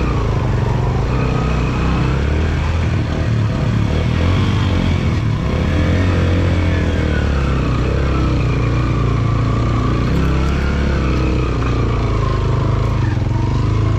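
Yamaha motorcycle engine running steadily under load as the bike climbs a steep, rocky dirt track, its pitch rising and falling slightly with the throttle.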